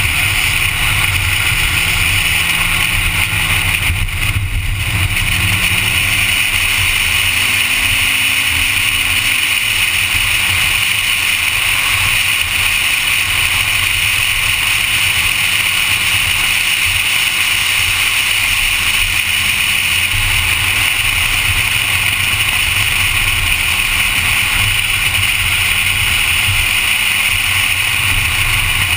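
Honda Civic lapping a race track: a steady loud roar of wind and road noise, with the engine note faintly rising and falling beneath it through gear changes and throttle.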